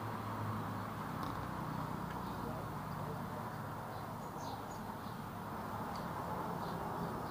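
Steady background noise with a low hum that fades about halfway through, and a few faint, short high chirps.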